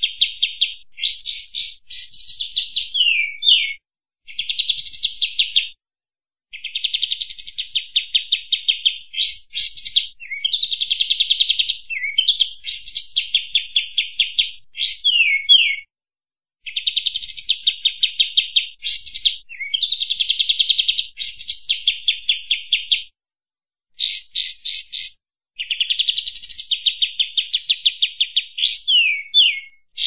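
Kapas tembak bulbul (olive-winged bulbul) in full song: long phrases of rapid, dense chattering notes mixed with sharp rising and falling whistled slurs. The phrases run several seconds each with brief pauses between them.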